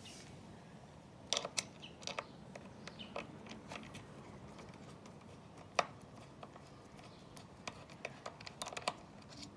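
Irregular small clicks and taps of hands working on a computer's plastic casing and screws during disassembly, with one sharper click a little under six seconds in.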